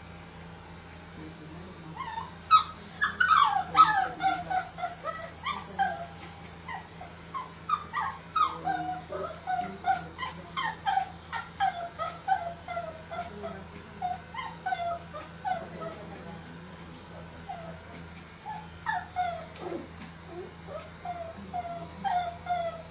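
Shih Tzu puppy whining and yelping over and over while being groomed, short falling cries about two a second that start about two seconds in. It is the puppy's protest at the handling. A low steady hum runs underneath.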